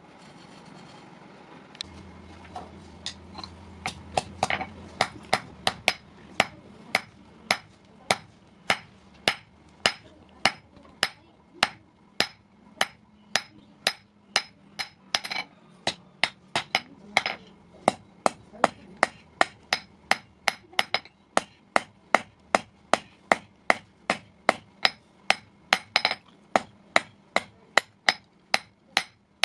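Hammer striking iron in blacksmithing work: a few scattered blows, then from about four seconds in a steady run of sharp ringing blows, about two a second.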